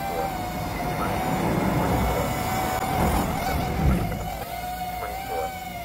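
FPV quadcopter hovering, its motors giving a steady high whine. A low rumble swells through the middle and fades after about four seconds.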